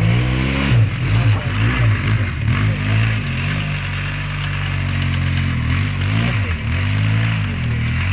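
Engine of a four-wheel-drive off-road vehicle being driven hard, its revs rising and falling again and again over a steady low hum.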